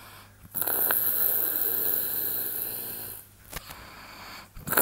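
A sleeping man snoring: one long snore of about two and a half seconds starting about half a second in, a pause, then the next snore starting near the end.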